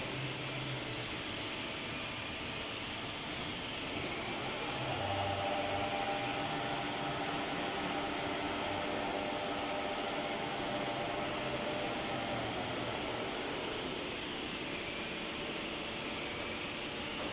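STMSI CS6150B metal lathe running with a steady mechanical noise; a whine of several steady tones comes in about five seconds in and fades out around twelve seconds.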